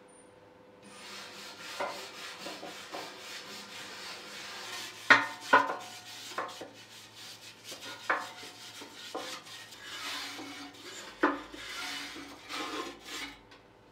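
Scraping and brushing of soot and ash inside the steel firebox of a homemade sawdust stove, with a handful of sharp knocks of the tool against the metal walls.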